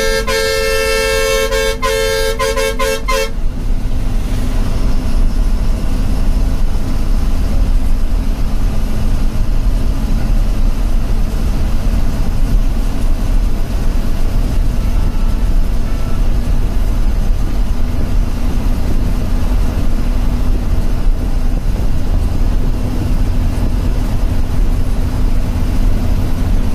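A bus horn sounding in a run of short blasts while the bus overtakes a lorry, stopping about three seconds in. After that, the steady running of the bus's diesel engine with road noise in the cab.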